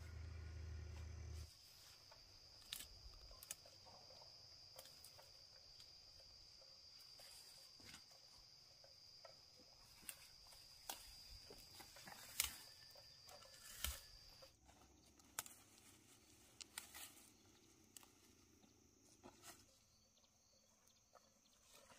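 Faint, steady high-pitched trill of an insect that stops about two-thirds of the way through, with scattered light clicks and knocks, two of them louder. A low hum cuts off about a second and a half in.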